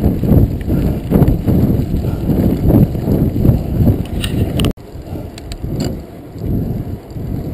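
Full-suspension mountain bike rolling fast over a dirt and gravel road: a loud rumble of tyres on gravel and wind on the microphone, with small rattles and clicks from the bike. A little past halfway it cuts abruptly to a quieter, smoother roll on a paved path.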